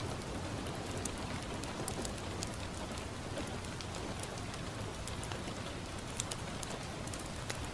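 Steady rain falling on a window, mixed with a crackling fireplace: an even hiss with scattered sharp ticks and pops.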